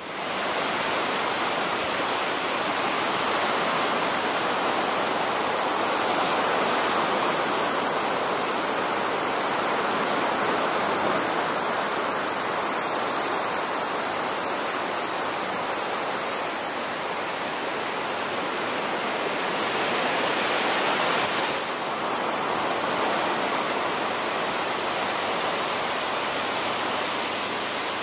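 Steady loud rushing hiss of surf breaking on a sandy beach, swelling slightly about three-quarters of the way through.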